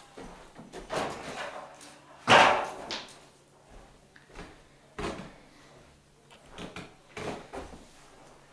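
Aluminium stepladder being carried and set up out of sight, knocking and clattering; the loudest is a sharp metallic clatter about two seconds in, with quieter knocks later.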